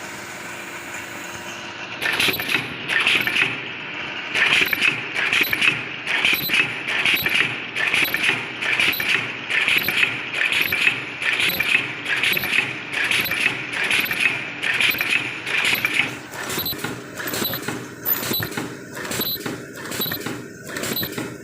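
Automatic mask ear-loop welding machine running. After a steady hum it starts cycling about two seconds in, with a repeated mechanical clatter of about one and a half strokes a second.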